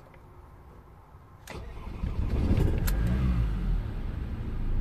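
Ford Transit 2.4 TDCi four-cylinder diesel starting: a click about a second and a half in, then the engine cranks and fires, its revs flaring up and dropping back before it settles into a steady idle.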